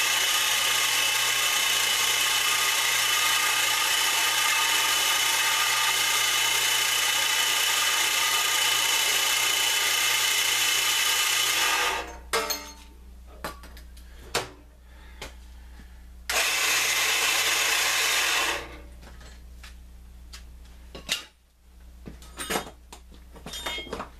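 1 HP Central Machinery 4x6 metal-cutting band saw running, a loud steady whir with several tones, its blade cranked as tight as it will go, which stops abruptly about halfway through. The same noise returns for about two seconds, followed by scattered metal clicks and clunks.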